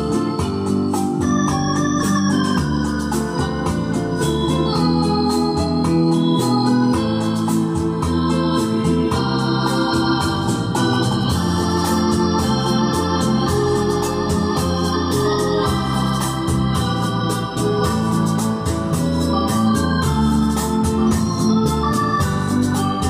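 Organ music played back through a JVC AX-11 stereo integrated amplifier under test: sustained chords shifting every second or so at a steady volume.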